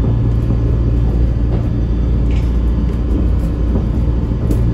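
Interior running noise of a Chiba Urban Monorail suspended car travelling along its track: a steady low rumble and hum from the running gear and motors.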